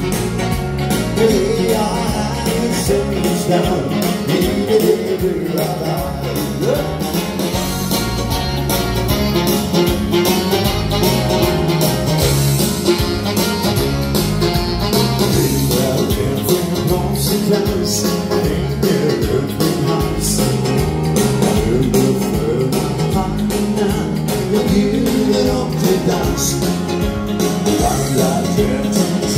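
A Norwegian dance band playing live through the hall's PA, with a singer over a steady dance beat.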